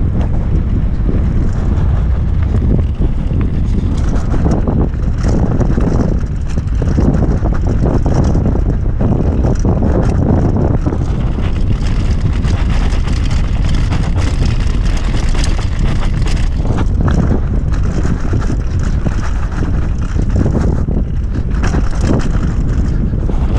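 Wind buffeting a GoPro action camera's microphone on a fast mountain-bike descent, a steady heavy rumble. Over it, bicycle tyres roll on loose gravel and dirt, with frequent short rattles and clatters as the bike runs over stones.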